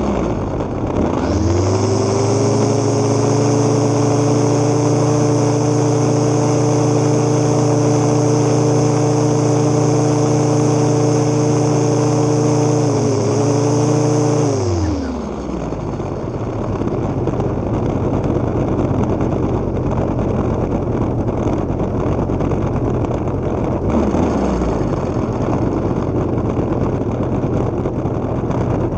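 Stihl FS 70 R two-stroke string trimmer engine. It revs up about a second in and runs at steady high speed for about thirteen seconds, cutting grass, then drops back to a lower, rougher idle. There is a brief rev near the end.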